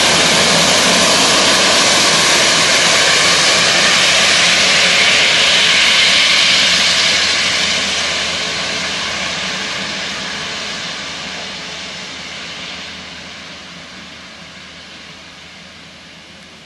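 Jet engines of an Airbus A350-1000 (Rolls-Royce Trent XWB) running as the airliner passes and turns away: a loud, steady rush with a whine that holds for about seven seconds, then gradually fades as the plane moves off.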